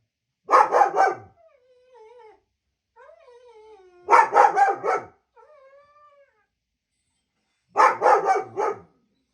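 Dog barking in three quick runs of four or five barks each, about four seconds apart, with quieter whining glides in between.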